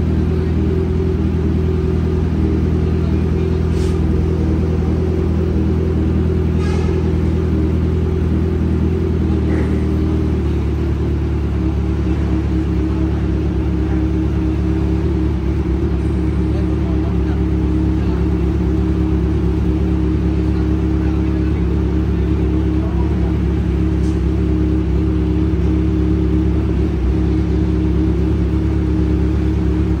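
Kawasaki Z1000R's inline-four engine idling steadily through an aftermarket exhaust with a titanium header and carbon-sleeved muffler. The idle note shifts slightly about ten seconds in.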